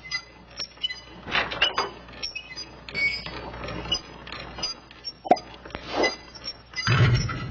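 Irregular metallic clinks, clanks and creaks, with a louder knock near the end.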